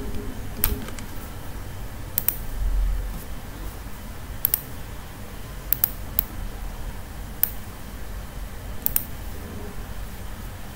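Computer mouse clicking: about seven sharp clicks a second or two apart, two of them quick double-clicks, over a steady low background hiss and hum. A brief low rumble about three seconds in.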